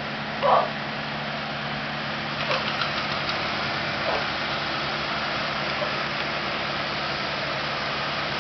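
Steady low mechanical hum, like an idling engine or running machinery, with a short vocal sound about half a second in and a few faint light taps a few seconds later.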